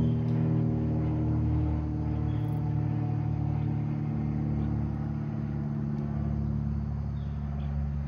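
A steady, low engine hum with its higher overtones dying away over the first few seconds, with a few faint, short high chirps later on.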